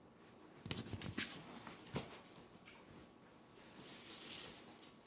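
Faint rustling and a few light taps of sheets of coloured paper being handled and lifted off a whiteboard, with a soft swish of paper about four seconds in.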